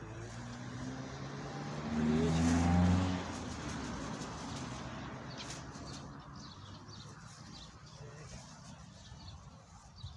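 A car driving past: its engine note grows, is loudest about two to three seconds in, then fades away. Birds chirp faintly near the end.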